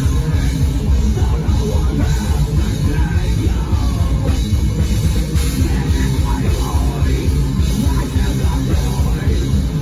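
Rock band playing a heavy rock song live, with a drum kit pounding under loud, dense instruments; an instrumental passage without singing.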